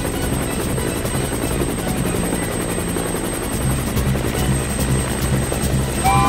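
Helicopter sound effect: a steady, rapid rotor chop with engine noise.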